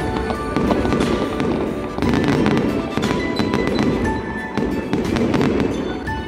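Fireworks going off, with a dense run of bangs and crackles, mixed with music playing throughout.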